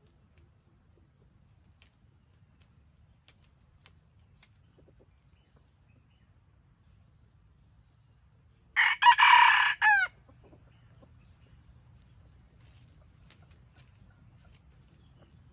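Red junglefowl rooster giving one short, clipped crow about a second long, broken into a few parts, over faint forest background.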